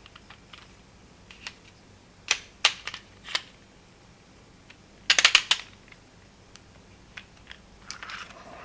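Sharp clicks and clinks of small metal hand tools being handled on a hard surface: a few separate clicks, then a quick rattling cluster about five seconds in.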